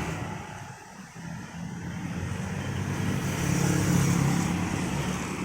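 A road vehicle passing by, its engine and tyre noise growing louder to a peak about four seconds in and then fading away.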